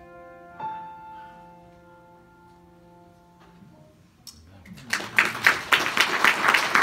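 Upright piano's last chord struck and left to ring, dying away over about three seconds. About five seconds in, applause breaks out.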